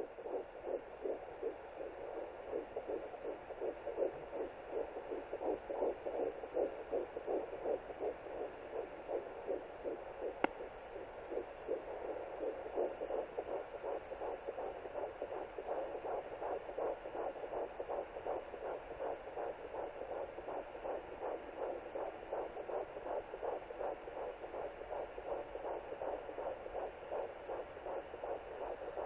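Fetal heartbeat at 11 weeks through a Sonoline B pocket fetal doppler's speaker: a rapid, even pulsing beat, with a single click about ten seconds in.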